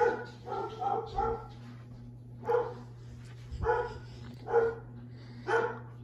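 A dog barking: four quick barks in the first second and a half, then four more about a second apart. Under the barks runs the steady low hum of a running ceiling fan.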